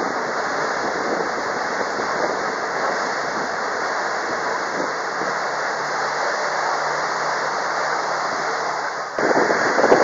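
Steady running noise aboard a tour boat under way: an even rush of wind and water with a low engine drone underneath. The sound changes abruptly about nine seconds in.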